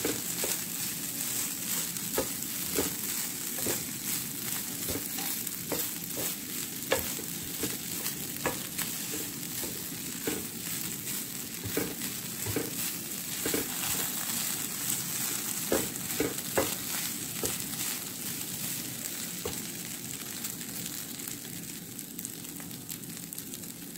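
Fried rice with broccoli sizzling in a hot skillet while a wooden spatula stirs and turns it, with irregular knocks and scrapes of the spatula against the pan. The stirring thins out over the last several seconds while the sizzle goes on.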